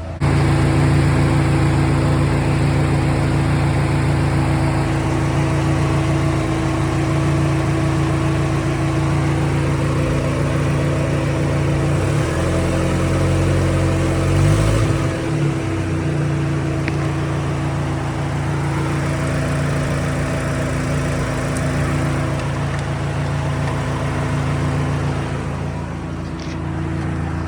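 Nissan Navara's turbocharged engine idling steadily with the air conditioning running, its engine note shifting briefly about halfway through.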